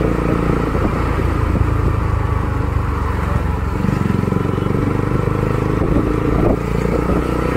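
Bajaj Pulsar NS200's single-cylinder engine running through a custom aftermarket exhaust while riding at low speed, with a bassy exhaust note.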